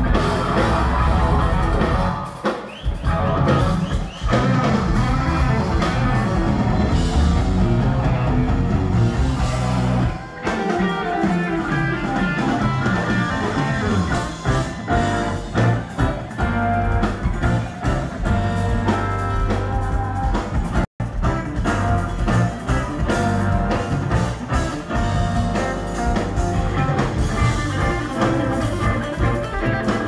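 Live rock band playing loudly, electric guitars over drum kit. The sound cuts out completely for an instant about two-thirds through.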